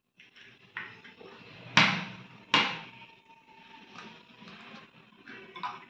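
A raw egg knocked twice against the rim of a small glass bowl to crack the shell, two sharp knocks under a second apart, the second leaving the glass ringing briefly; softer shell and spoon clicks follow.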